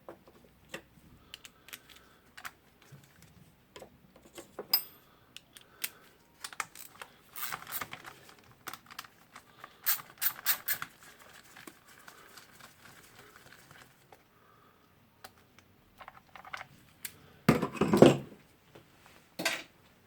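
Metal parts and hand tools being handled while a rotary hammer drill is taken apart: scattered light clicks and short clatters, with a louder clatter near the end.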